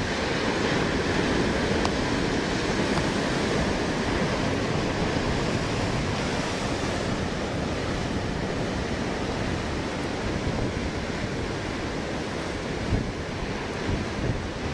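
Storm surf breaking and churning on the beach, a steady rush of heavy waves, with wind buffeting the microphone.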